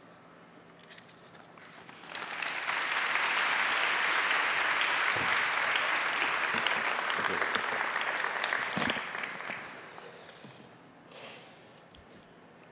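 Audience applauding: the clapping swells about two seconds in, holds steady, then dies away in the last few seconds.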